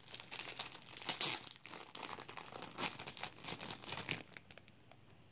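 Clear plastic wrapper crinkling and crackling in the hands as a wax tart is unwrapped. It is loudest about a second in and again near three seconds, and stops shortly before the end.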